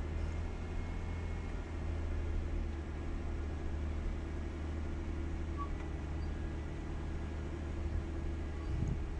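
Jeep engine running steadily, a deep even drone.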